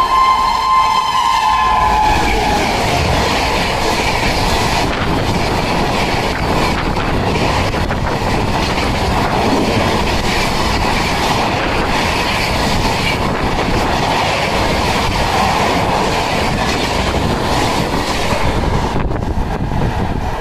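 Express train hauled by a WAP-7 electric locomotive running through a station at high speed. The locomotive's horn tails off with a drop in pitch as it passes about a second in, then the coaches rush past in a loud, steady rumble that eases a little near the end.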